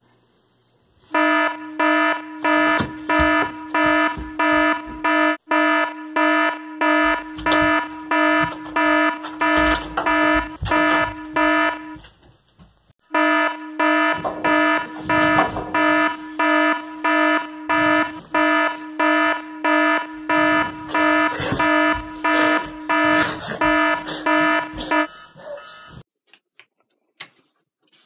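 iPhone timer alarm ringing: a loud, pitched beeping pattern repeating about twice a second. It cuts off about 12 seconds in, starts again a second later, then stops for good a few seconds before the end.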